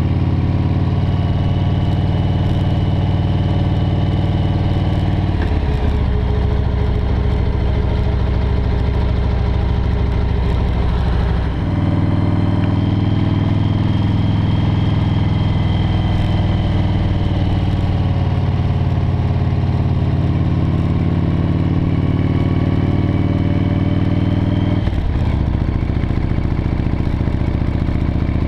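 V-twin cruiser motorcycle engine running at road speed, a steady low note under wind rush. The engine note shifts about five seconds in, again near the middle with a brief dip, and once more near the end as the engine speed changes.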